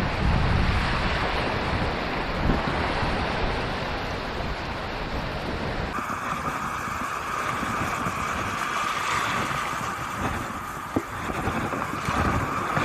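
Small surf waves washing over shallow water on a sandy beach, with wind buffeting the microphone. About six seconds in, the sound changes abruptly to a thinner wash of surf with less low rumble.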